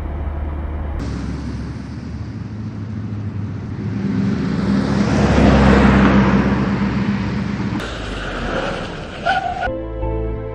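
Minivan driving past on a road: engine and tyre noise that swells to its loudest about five or six seconds in, then eases off. Soft music comes in near the end.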